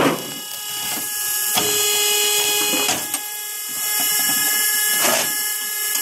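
Vertical firewood splitter with an electric motor running with a steady whine, while its multi-blade wedge splits a log, making several sharp wood cracks.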